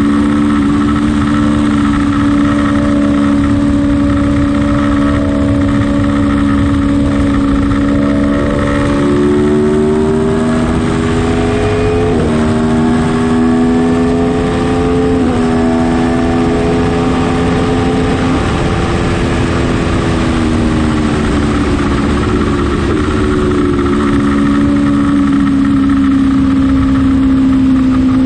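Aprilia Tuono motorcycle engine running hard on track, revs climbing and dropping sharply at two upshifts around the middle, then winding down as it slows before holding a steady note near the end.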